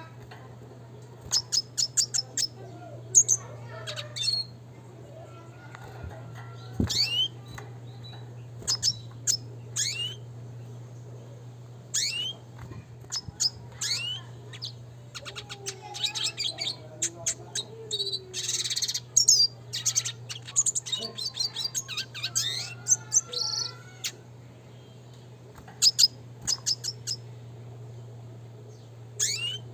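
Red siskin singing in bursts of rapid, sharp chirps and quick rising whistled notes, busiest around the middle, over a steady low hum.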